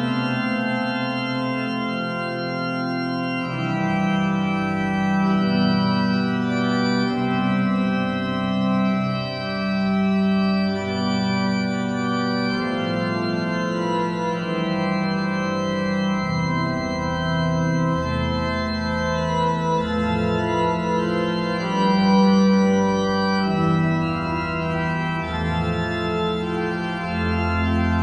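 Calm background music of slow, held organ-like keyboard chords, changing every second or two. Deeper bass notes join about two-thirds of the way through.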